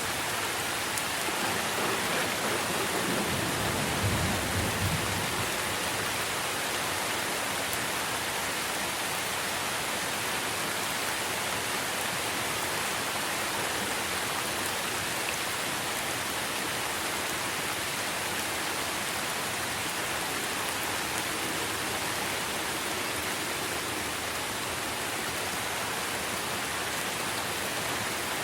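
Steady heavy rain pattering on tree leaves. A brief low rumble of thunder swells and fades about four seconds in.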